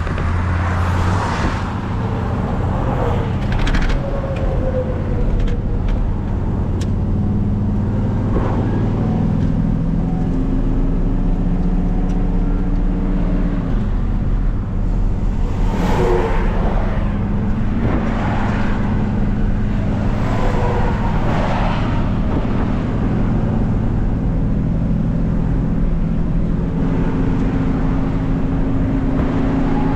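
Vehicle engine running while driving, with steady road rumble; the engine pitch shifts up and down a few times. A few brief knocks and rattles cut through, near the start and around the middle.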